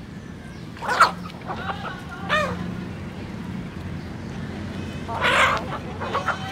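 A flock of domestic chickens calling while they feed: a sharp squawk about a second in, a few short clucks falling in pitch, and a louder rough burst near the end, over a low steady hum.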